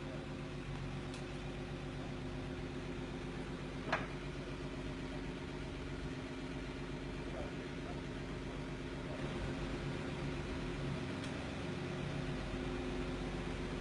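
An engine running steadily at idle, a constant low hum, with a single short click about four seconds in.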